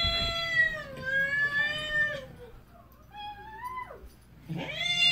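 A cat meowing in long, drawn-out calls: one trailing off in the first two seconds, a shorter one rising in pitch past the middle, and another starting near the end.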